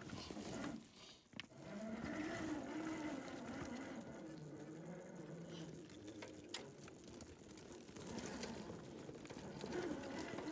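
Electric motor and gearbox of an SCX10 II 1/10-scale RC crawler whining, the pitch rising and falling with the throttle as it crawls over rock, with scattered clicks of tyres and chassis on stones.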